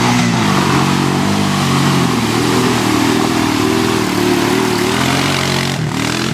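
Off-road vehicle engine revving, its pitch rising and falling repeatedly, with a briefer dip near the end.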